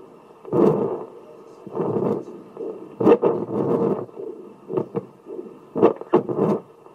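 Fetal Doppler monitor's speaker giving uneven whooshing bursts, about five in all, with sharp clicks, as the probe is moved over the belly to find the second baby's heartbeat.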